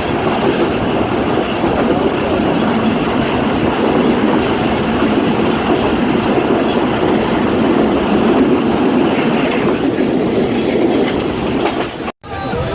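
A train running past on the rails: a loud, steady rumble and rattle of wheels over the track. It cuts off suddenly near the end.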